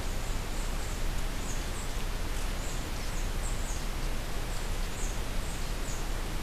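Steady hiss of a trail camera's microphone, with a string of short high chirps from a small bird calling through it.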